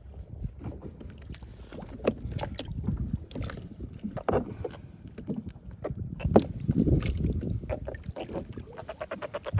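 Handling noise on a plastic kayak: irregular knocks, taps and rustles as gloved hands handle small live baitfish in the wet hatch. A few sharper knocks stand out, the loudest about two and six seconds in.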